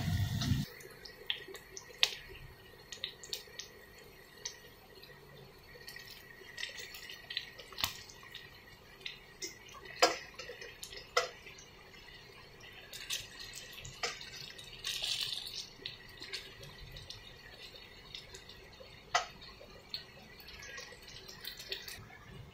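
Sliced potatoes shallow-frying in oil in a stainless steel pot: a faint sizzle broken by sporadic sharp pops of spattering oil. A louder rushing hiss cuts off about half a second in.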